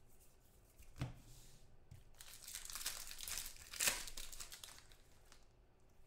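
Foil trading-card pack wrapper torn open and crinkled by hand, with a crackling rustle from about two seconds in that peaks near the four-second mark. A single light tap comes about a second in.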